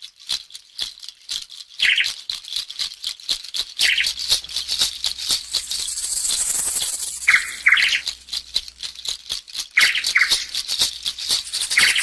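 Dense, rattling clicks like a shaker, with short high chirps that come every second or two, some of them in pairs.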